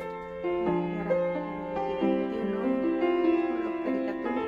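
Background music: gentle piano playing sustained chords and a slow melody.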